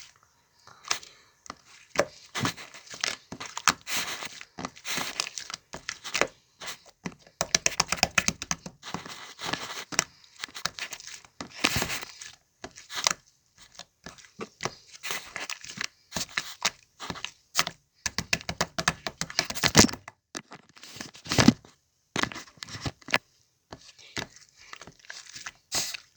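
Slime being squeezed, stretched and pressed by hand, giving irregular crackling, clicking and tearing sounds in bursts, with short pauses between them.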